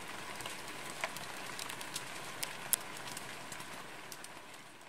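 Hazelnut shells burning in a forge fire: a steady hiss with frequent sharp crackles and pops, the loudest pop a little past halfway. It starts to fade near the end.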